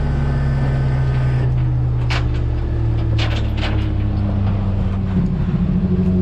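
Heavy tow truck's diesel engine running steadily, its pitch rising somewhat about four seconds in as it speeds up. Several short sharp knocks sound over it.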